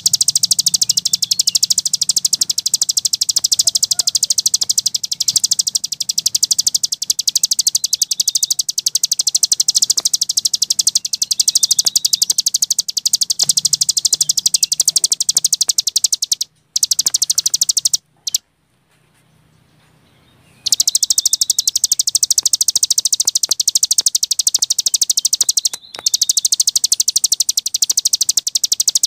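A cici gunung songbird singing a fast, unbroken high-pitched trill of rapid chattering notes, the continuous 'ngebren' style of song. The song breaks off briefly twice past the middle, once falling almost silent for about two seconds, and stops again for a moment near the end.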